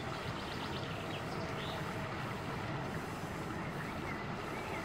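Steady outdoor background noise: a constant low rumble and hiss, with a few faint, short high chirps in the first two seconds.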